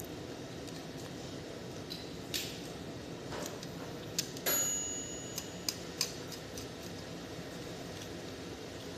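Small hard parts being handled: a few scattered clicks and knocks, with one metallic clink about four and a half seconds in that rings briefly, over a steady hiss.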